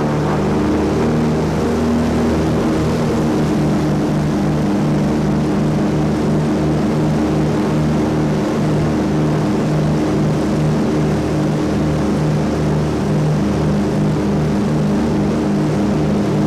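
Twin radial piston engines of a Douglas C-47, Pratt & Whitney R-1830 Twin Wasps, running steadily at high power during the takeoff roll, heard from inside the cabin.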